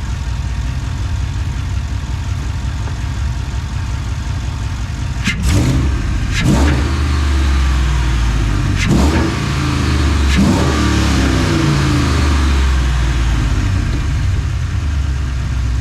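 Chevrolet Silverado 1500's 5.3-litre V8, fitted with a new S&B cold air intake, idling and then revved several times in quick blips from about five seconds in. The engine stays louder and heavier after that.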